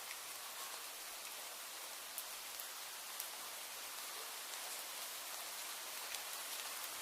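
Steady rainfall: an even hiss of rain with scattered sharp drop ticks now and then.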